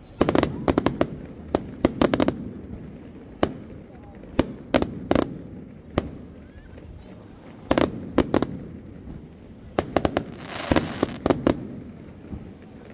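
Fireworks display: aerial fireworks bursting in sharp bangs, several at a time in quick clusters with short gaps between, and a denser run of bangs about ten seconds in.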